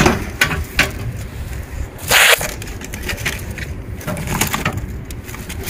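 Handling noises: a few sharp clicks and knocks, and a short, louder scraping or rustling burst about two seconds in.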